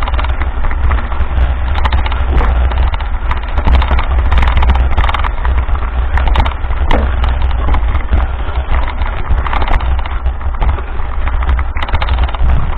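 Mountain bike rolling over a rough dirt track: tyres crunching on sand and gravel and the bike rattling and clattering over the bumps, with heavy wind buffeting on the microphone.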